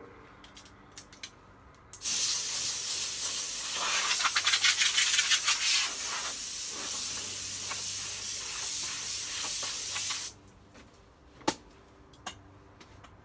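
Compressed-air spray gun with a 1.8 mm tip hissing: the air starts suddenly about two seconds in, pulses unevenly for a couple of seconds, and cuts off sharply some eight seconds later. A single sharp click follows.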